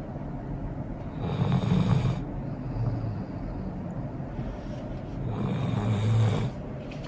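Golden retriever snoring in her sleep: two long snores about four seconds apart, each lasting about a second, with a quieter breath between.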